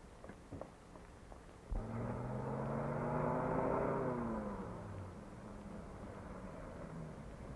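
A few faint footstep taps, then about two seconds in an old pickup truck's engine comes in suddenly and runs loud. It swells, then drops in pitch and fades as the truck goes by.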